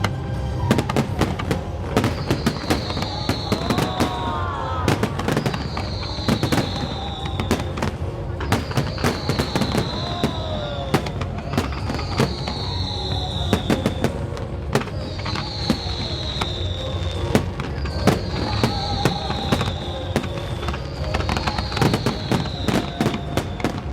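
Fireworks display: dense crackling and banging in rapid succession, with a high falling whistle that recurs about every two and a half seconds.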